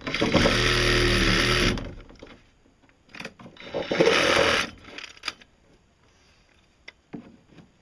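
Cordless reciprocating saw cutting into a boat hull in two runs: a longer one that stops about two seconds in, then a short burst near the middle. A few small clicks and knocks follow as the saw is put down.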